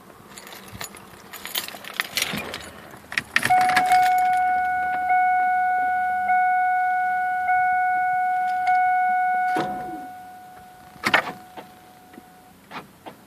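Car keys jangling, then the Camaro's warning chime dinging about once every second and a bit, for about six seconds, before fading away. A couple of sharp clicks follow near the end, with no engine cranking or running heard.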